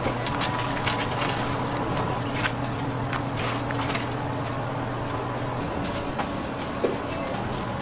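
Steady low mechanical hum with a faint high tone above it, under scattered light clicks and taps.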